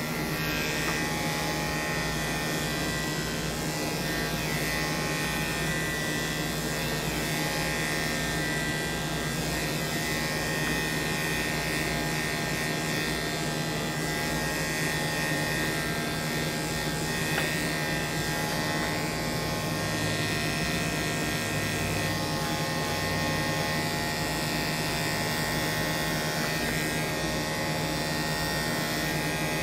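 Corded electric dog-grooming clippers running with a steady, even buzz as they clip a dog's coat.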